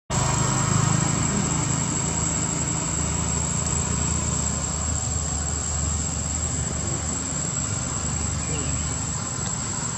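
Steady outdoor background: a constant high-pitched insect buzz over a low, even hum.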